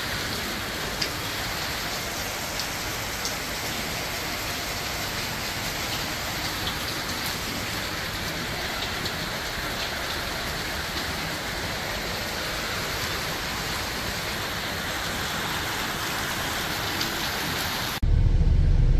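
Steady rain falling and pattering on a surface, with a few individual drops ticking now and then. About a second before the end it cuts suddenly to a much louder low rumble.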